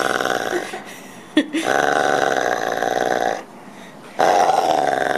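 Weimaraner growling during a tug-of-war over a toy, in three long rough growls with short breaks between them. A brief sharp sound comes about a second and a half in.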